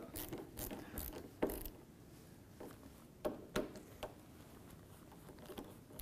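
Light clicks and ticks of a hand driver tightening the screws of a refrigerator's top door hinge: a cluster of clicks in the first second and a half, then a few scattered clicks.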